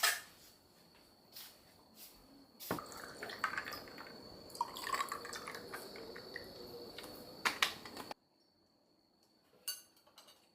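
A few light clicks, then water running or pouring for about five seconds, stopping suddenly.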